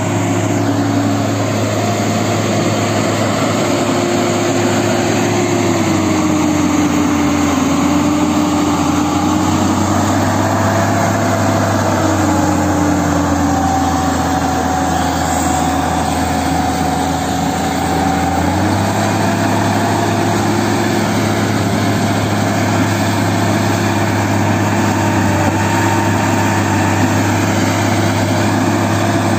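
Tata Hitachi hydraulic excavator's diesel engine running under work, with a whining tone from the hydraulics that slides up and down in pitch as the boom carries and lowers a concrete pipe. The engine note drops from about six seconds in and comes back up shortly after the halfway point.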